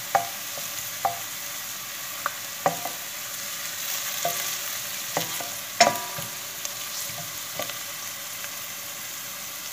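Diced onions, sautéed to pale gold, sizzling in oil in a stainless steel pot while a wooden spoon stirs them. The spoon knocks against the pot about eight times, the loudest a little past the middle.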